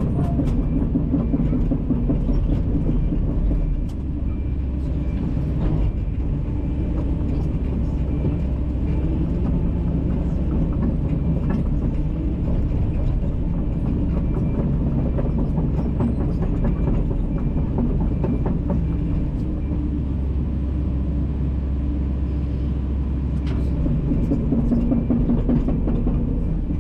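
Kobelco SK210LC-9 excavator's diesel engine running steadily while the machine works, with a brief dip in level about four seconds in.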